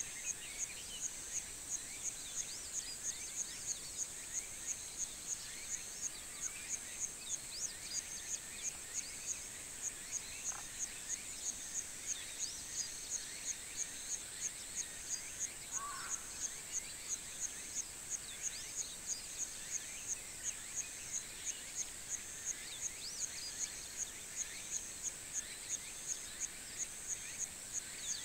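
High, steady insect song pulsing evenly about two to three times a second, with many small bird chirps scattered over it and a couple of brief lower calls.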